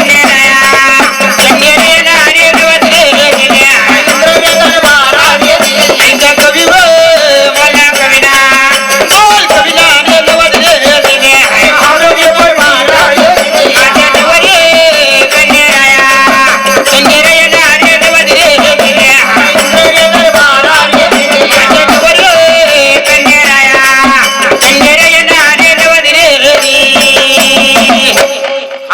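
Marathi devotional folk music: a wavering melody over dense, fast percussion. It breaks off just before the end.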